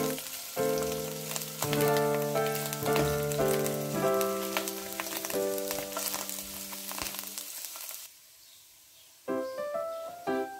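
Sliced mushrooms sizzling and crackling in hot oil in a wok, with piano music playing over it. The sizzle cuts off abruptly about eight seconds in, and the piano picks up again a second or so later.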